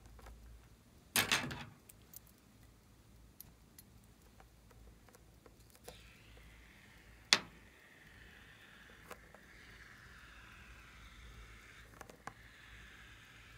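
Rubber balloon filled with white foam squeezed in the hands, with rubbery rustles and a few sharp clicks of fingers on it, the loudest click about seven seconds in. From about six seconds in, a soft squishing hiss as the foam is pushed out through the balloon's neck onto slime.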